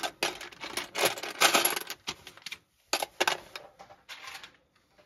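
Small plastic LEGO pieces rattling and clicking against each other and the plastic sorting tray as they are shaken and pushed into place, in quick clusters over the first two seconds, then a few scattered clicks, dying away near the end.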